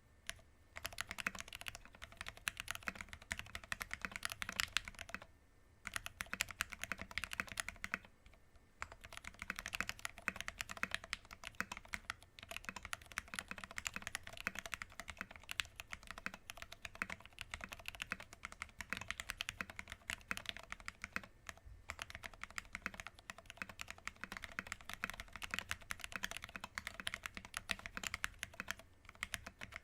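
Fast, continuous typing on a mechanical keyboard fitted with lubed retooled Cherry MX Black linear switches, MT3 PBT keycaps and an aluminium plate. Rapid keystroke clacks, broken by a few short pauses.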